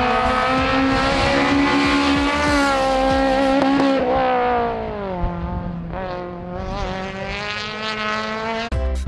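Citroën Saxo rally car's four-cylinder engine at high revs under hard acceleration. About four seconds in the pitch falls sharply as the car slows for a bend, and it runs on at lower, wavering revs.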